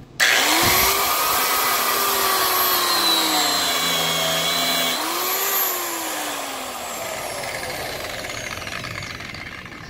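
Angle grinder with a cutting wheel starting suddenly and cutting into a car tyre, its high whine dropping in pitch as it bites into the rubber. About halfway through it is lifted off and winds down, pitch and level falling. The wheel cuts by friction, burning through the rubber.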